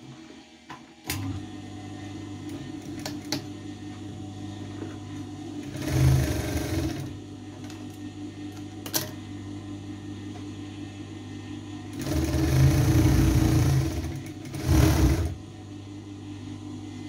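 Sewing machine stitching a seam in short runs: one about six seconds in, a longer run of about two seconds later on, and a short one right after it. A steady motor hum sets in about a second in and continues between the runs.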